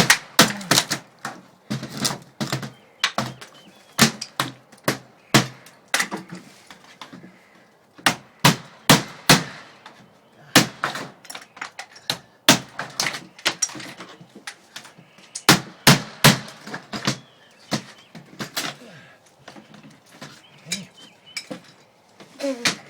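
Hammer blows on wood, dozens of sharp irregular strikes, often in quick runs of two or three.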